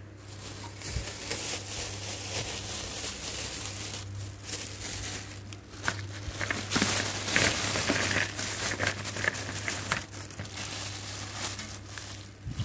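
Crinkly plastic rustling and handling around a clear plastic bowl, with irregular crackles, loudest for a few seconds in the middle.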